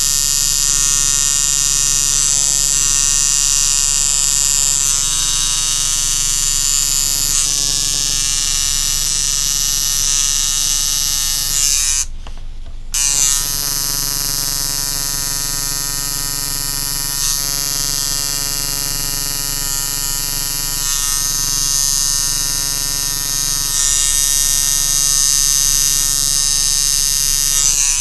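Coil tattoo machine buzzing steadily while inking outlines into skin, cutting out for about a second partway through and then starting again.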